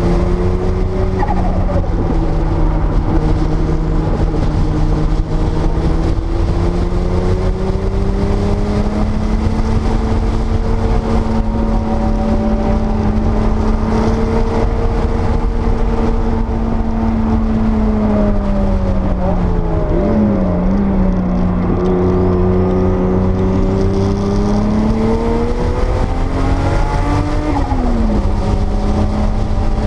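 1979 Porsche 930 Turbo's turbocharged air-cooled flat-six running hard on track, its pitch climbing and falling with throttle and gear changes. There is a dip with quick rev blips around twenty seconds in and another short dip near the end, over steady low road and wind rumble.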